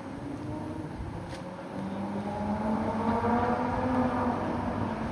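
A motor vehicle's engine running close by, its steady hum growing louder from about two seconds in as it approaches, over street background noise.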